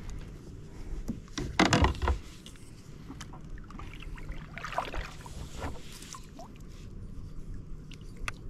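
Water sloshing and knocking around a kayak, with a louder splashy burst of sound about a second and a half in and a weaker one around five seconds, and scattered light knocks in between.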